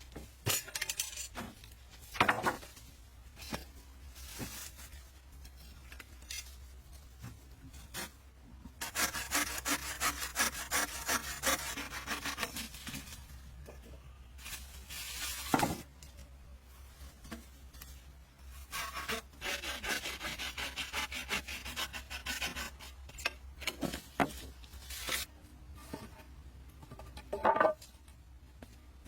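Wood being worked by hand: two spells of rapid back-and-forth sawing or scraping strokes, with separate sharp knocks of wood between them.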